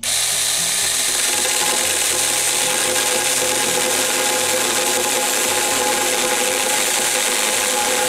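A Saker mini battery-powered electric chainsaw with a 6-inch bar starts abruptly and cuts steadily into a round pressure-treated wooden post. The motor runs under load with a steady whine as the chain chews through the wood.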